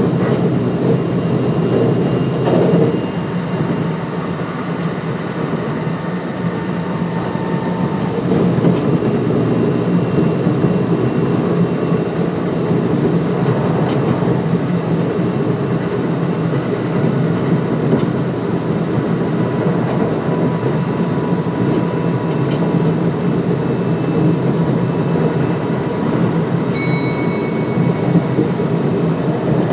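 Kintetsu 1259 series electric train running between stations, heard from inside the car: a steady rumble of wheels on rail. A short high-pitched tone sounds near the end.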